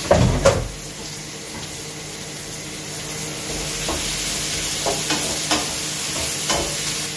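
Vegetables sizzling as they stir-fry in a frying pan on a gas hob, with a wooden spatula scraping and knocking against the pan every second or so. A loud thump and clatter comes right at the start.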